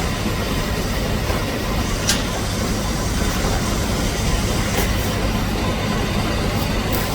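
Steady mechanical running noise with a constant low hum, broken by a few sharp ticks.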